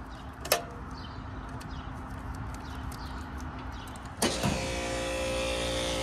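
A click about half a second in; then, about four seconds in, a Ruud/Rheem split-system condensing unit starts with a clunk as its contactor closes, and the compressor and condenser fan run on with a steady hum of several pitches.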